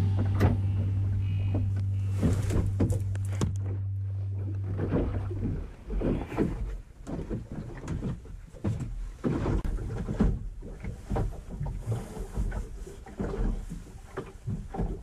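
A held low musical note fades out over the first five seconds or so, then irregular knocks, taps and rattles follow as gear is handled in a small boat's cabin.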